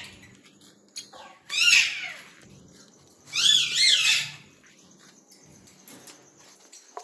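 Small caged parrots chirping in two short bursts of quick, rapidly repeated rising-and-falling notes, about a second and a half in and again around three and a half seconds in.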